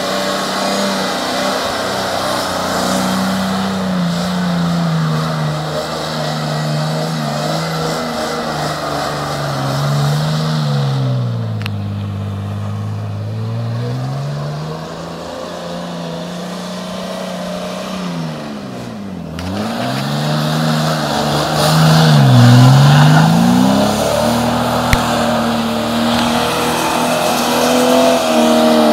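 Jeep's engine revving up and down as it spins donuts on a sandy beach. The engine note drops low twice around the middle, then climbs again and is loudest in the last several seconds.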